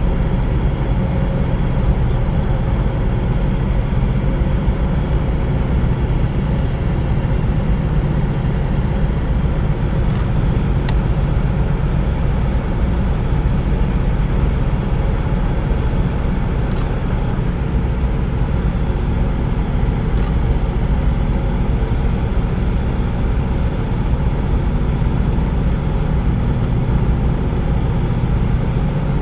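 A steady, loud, low engine rumble with a faint machinery hum that does not change. A few faint clicks sit on top of it.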